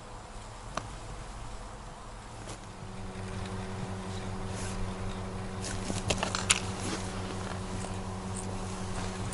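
A small engine droning steadily, growing louder from about a third of the way in, with a few sharp clicks about two-thirds of the way in.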